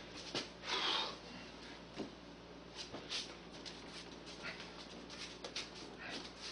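Scattered light footsteps, scuffs and small knocks on a concrete floor as a wooden model railroad layout section is picked up and carried, with a brief rustling noise about a second in.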